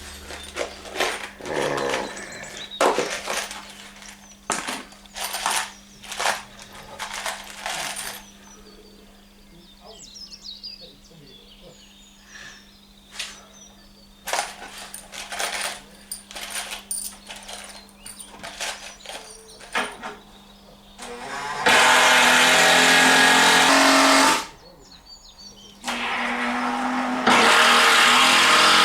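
Wooden 2x4 pieces knocking and clattering as they are handled and set in place, then a power drill driving screws into the wood in two steady runs of two to three seconds each near the end.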